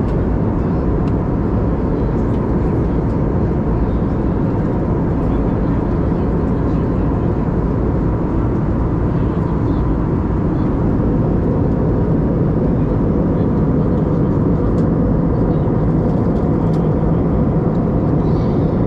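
Steady cabin noise of an Airbus A320neo in flight, heard inside the cabin: an even, deep rush of engine and airflow noise, with a faint steady tone running through it.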